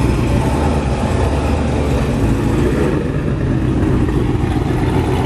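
Cadillac CTS-V coupe's supercharged 6.2-litre V8 running at low revs with a deep, steady exhaust note as the car rolls slowly past and pulls away.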